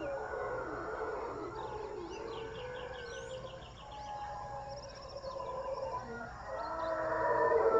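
Howler monkeys howling: long, drawn-out moaning roars in several overlapping voices, swelling louder near the end. Birds chirp and trill faintly above them.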